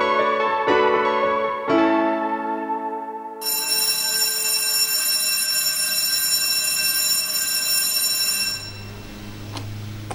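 Piano chords, then about three and a half seconds in an electric school bell starts ringing, held steadily for about five seconds before cutting off.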